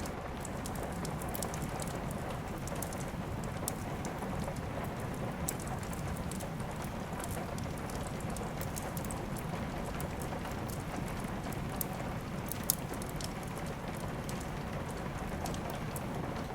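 Steady rain with a crackling wood fire, sharp pops and snaps scattered over the hiss of the rain. One pop about three quarters of the way through is louder than the rest.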